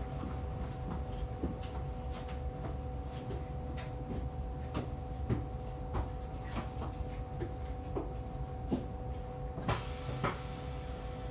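Inside the cab of a Stuttgart rack railway railcar standing still: a steady two-note hum over a low rumble, with scattered light clicks and knocks and two louder knocks near the end.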